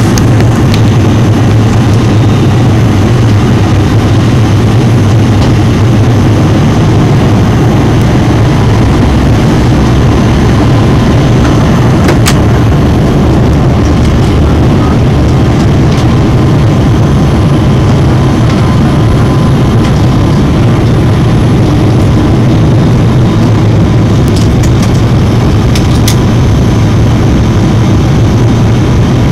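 Steady cabin noise inside an airliner descending to land: a loud, even rumble of engines and rushing air, with a faint steady hum on top and a couple of small clicks in the cabin.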